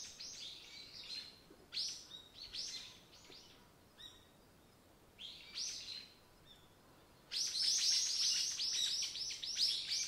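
A small songbird singing in four bursts of quick, high, down-slurred notes, about six or seven a second, with short pauses between bursts; the longest burst fills the last three seconds.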